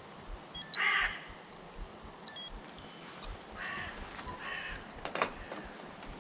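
A crow cawing three times, with two brief high chirps in the first few seconds.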